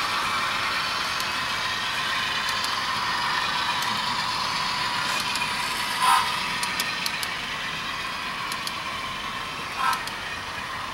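HO scale model trains running on the layout: a steady whirring rush of wheels and motors on the track with scattered light clicks. Two brief louder sounds come about six and ten seconds in.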